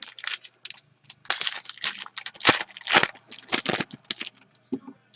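Hockey card pack wrapper being torn open and crinkled by hand: a run of sharp, irregular crackles, densest and loudest in the middle.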